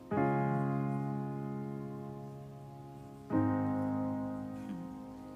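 Nord Stage 3 stage keyboard playing a piano sound: two sustained chords, the second struck about three seconds after the first, each left to ring and slowly fade.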